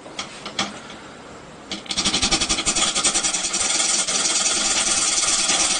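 A small motor running with a fast, even rattling pulse, starting abruptly about two seconds in after a few faint clicks.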